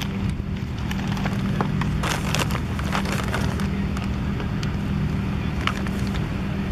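A steady low mechanical hum at a constant pitch, with a few faint clicks and knocks over it.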